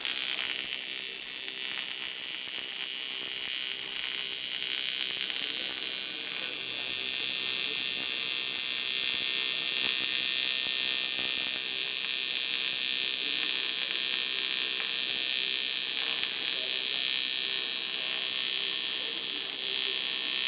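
Eastwood TIG 200 welding arc buzzing steadily with a constant hiss while a crack in a wheel rim is welded.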